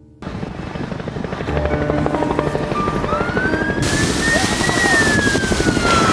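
Helicopter flying near, its rotor chopping steadily; the sound cuts in suddenly and grows louder over the first couple of seconds.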